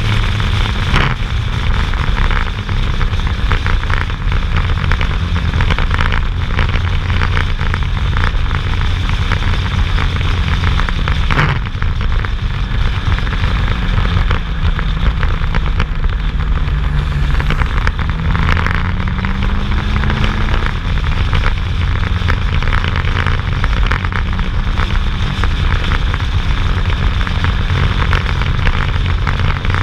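Motorcycle engine running at road speed under heavy wind buffeting on the microphone. A little past the middle the engine note rises as the bike accelerates.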